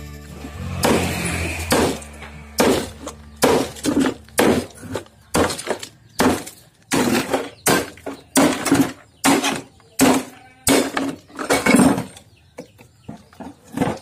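Repeated hammer blows smashing a washing machine's concrete counterweight, about two strikes a second from a couple of seconds in, each one a sharp crack with chunks breaking off.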